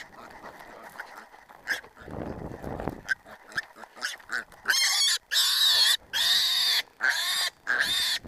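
Black piglet squealing loudly, about five long high-pitched squeals in quick succession starting about five seconds in, as it is grabbed by hand. Before that, footsteps and rustling through dry grass during the chase.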